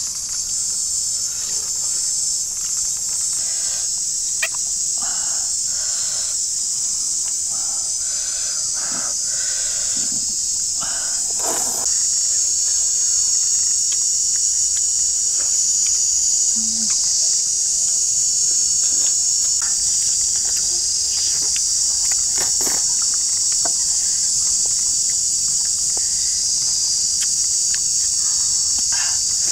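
A steady, high-pitched chorus of insects, a little louder from about twelve seconds in, with scattered short smacks and clicks of people eating by hand.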